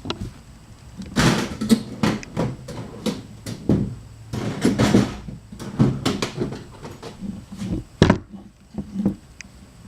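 Rubber mallet tapping the plastic piece onto a new Barton short-throw shifter: a run of irregular dull knocks with some scraping between them, the loudest knock about eight seconds in.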